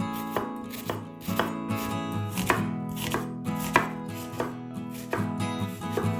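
Knife chopping vegetables on a cutting board, a sharp chop about every half second, over soft background acoustic guitar music.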